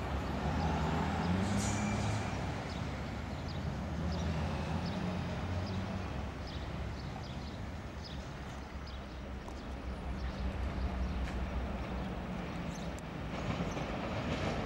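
Electric multiple unit running away along the line, its low motor hum and wheel-on-rail noise fading, with scattered faint clicks. Near the end another train's noise rises.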